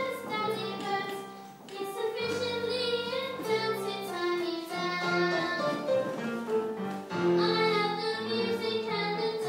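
A girl singing a song into a microphone over an instrumental accompaniment, with long held notes.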